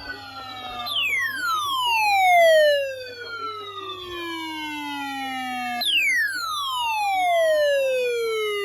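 A siren-like tone falling steadily in pitch, twice. The first fall starts about a second in, and the second starts suddenly high again near six seconds in.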